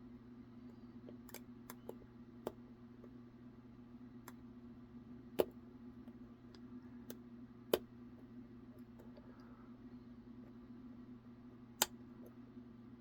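Scattered small metallic clicks and taps of a lock pick working the pins inside a modified Rover SDB Scandinavian-oval padlock. A few sharper clicks stand out, about five, eight and twelve seconds in, over a steady low hum.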